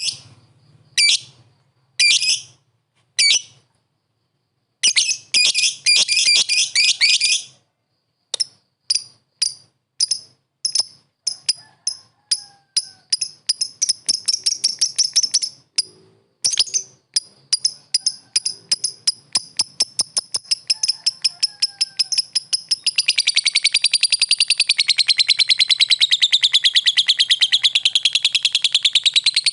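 Lovebird calling: a few short bursts of shrill chirps, then single sharp chirps that come faster and faster until, near the end, they run together into a rapid continuous chatter. These are the calls used to challenge a rival lovebird.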